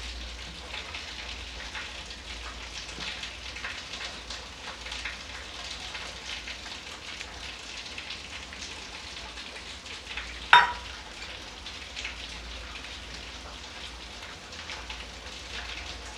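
Hands rubbing and crumbling wheat flour with ghee in a steel mixing bowl: a steady, crackly rustle. About ten and a half seconds in, one sharp, ringing clink of metal against the steel bowl.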